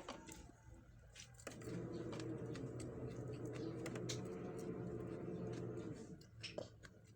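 Close-up eating sounds: chewing and small clicks of food and utensils, in scattered sharp ticks. A steady low hum swells up for several seconds in the middle.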